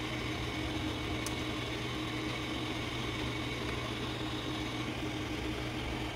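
Steady machine hum and hiss of room tone, with one faint click about a second in.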